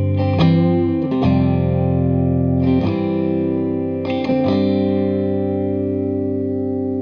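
Music: guitar chords strummed and left to ring, with effects, in an instrumental passage of a song; a new chord comes in about a second in, near three seconds and again about four seconds in.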